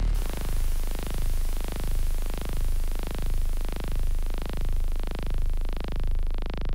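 Film sound-design drone: a low steady hum under a hissing swell that rises and falls a little more than once a second, like a slow throb, with a faint steady high whine above it.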